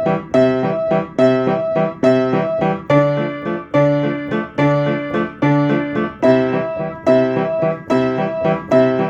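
Piano playing a repeating riff: chords struck over a low bass note, a new chord a little more than once a second.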